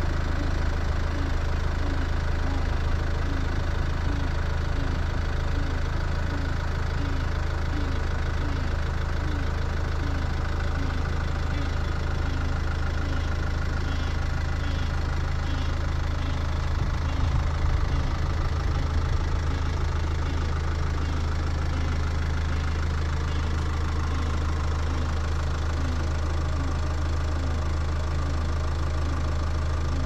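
Car engine idling steadily, a low hum with an even pulse.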